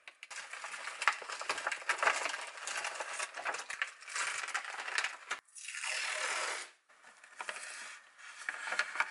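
Plastic packaging of frozen chicken skewers crinkling and rustling as it is cut open with scissors and skewers are pulled out. About five and a half seconds in comes a smooth rasp lasting just over a second as a strip of masking tape is pulled off the roll, then lighter rustling.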